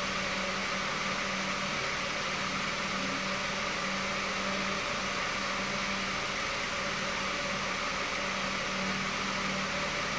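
A small motor running steadily, a fan-like whir with hiss and a low hum that fades in and out.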